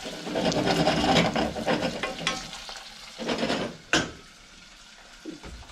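Wooden spatula stirring and scraping sliced onions as they fry and sizzle in a stainless-steel saucepan, with a sharp knock about four seconds in; the stirring is loudest over the first three seconds, then the frying goes on more quietly.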